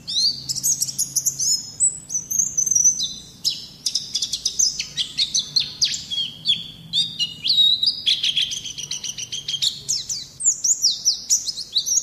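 White-eye (pleci) singing in full voice: a fast, nearly unbroken stream of high chirps and short trills.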